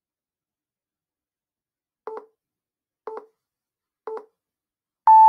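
Countdown timer beeping: three short, lower beeps a second apart, then one longer, louder, higher beep as it reaches zero.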